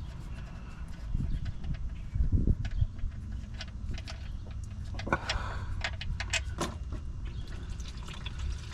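Light metallic clicks and clinks of hand tools and a drain plug being worked at a car's oil pan, with a cluster of sharp clicks about five to seven seconds in, over a low steady rumble.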